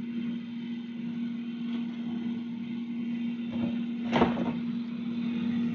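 Philips air fryer running, its fan motor giving a steady hum, with a short knock about four seconds in.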